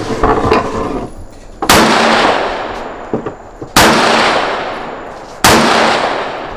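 Three rifle shots about two seconds apart, each trailing a long, fading echo.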